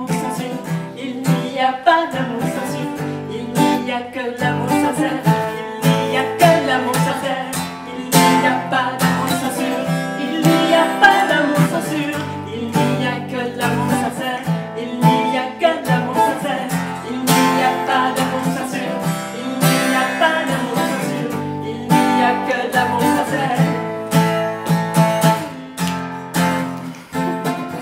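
A song: an acoustic guitar strummed steadily while women's voices sing in French.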